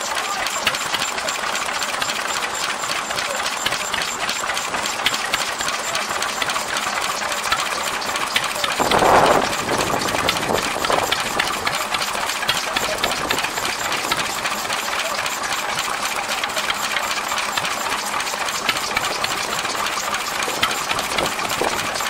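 Vintage stationary engine running steadily with a fast, even chuffing beat. A brief louder noise comes about nine seconds in.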